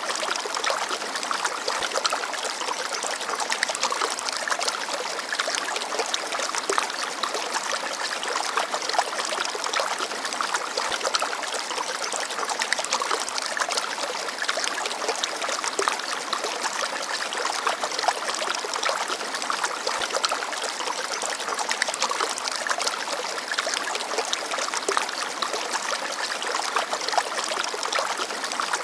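Shallow forest stream babbling and trickling over stones: a steady, dense splashing and gurgling of running water.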